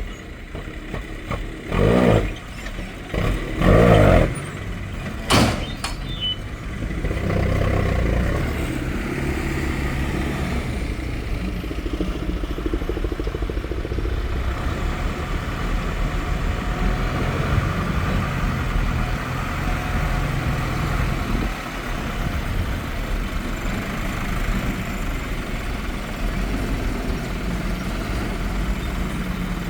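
Heavy earthmoving equipment's diesel engine running steadily at a low rumble, after a few louder separate sounds and a sharp knock in the first few seconds.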